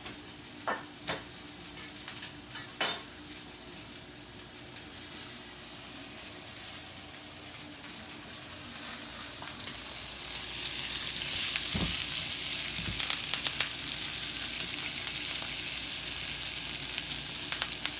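Steak searing in a hot skillet of oil and butter with garlic and thyme, sizzling steadily and growing louder about halfway through. A few sharp clicks in the first three seconds and a dull thud a little after the middle.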